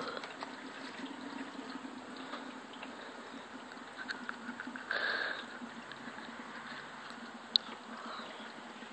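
Diesel exhaust fluid trickling from an upturned plastic bottle into the filler of a BMW 335d's reserve DEF tank, with air bubbling back up into the bottle as it drains. One sharp tick sounds near the end.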